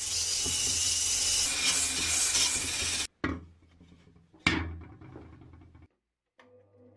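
Small handheld power tool abrading rust from the inside of a steel helmet: a loud, steady hiss with a faint high whine, cut off after about three seconds. Two sharp knocks with short decaying rings follow, and near the end an electric bench grinder's motor starts up with a steady hum.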